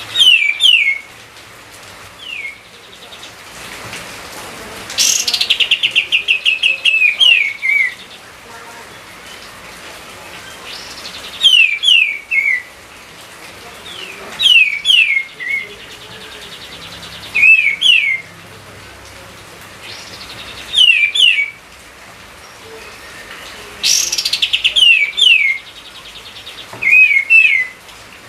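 A songbird singing the same phrase again and again, a few quick whistled notes that fall in pitch, repeating every few seconds. Some phrases open with a fast rattling trill.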